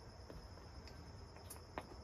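Faint, quick clicking, sparse at first and then about three clicks a second from about a second and a half in, from working a hand pressure pump to bring a chainsaw crankcase up to 7 psi for a leak test.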